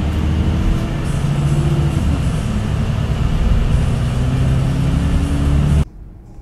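Bus engine heard from inside the cabin, its note rising as the bus pulls away, dropping at a gear change about two seconds in, then rising again. It cuts off suddenly near the end, leaving a much quieter rumble.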